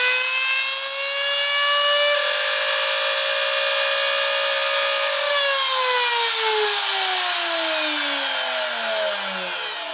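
Spindle motor of a homemade Brute mini mill running loudly with a high whine after a cut in aluminum. It holds a steady pitch, then is switched off about five seconds in and winds down, its whine sliding steadily lower until it fades near the end.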